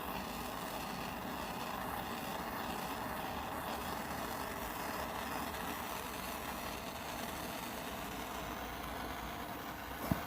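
A steady rushing noise, with a single sharp click just before the end.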